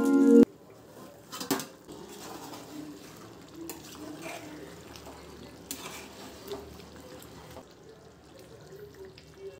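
Intro music cuts off about half a second in. After it, chicken curry simmers in a metal pot, with a few light clinks of a utensil against the pot.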